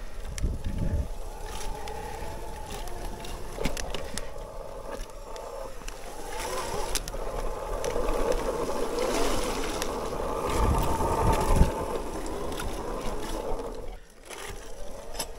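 Bafang BBSHD mid-drive e-bike motor whining under power, its pitch shifting as it pulls, over knocks and rattles of the bike on rough trail. Wind buffets the microphone twice, about half a second in and again around eleven seconds.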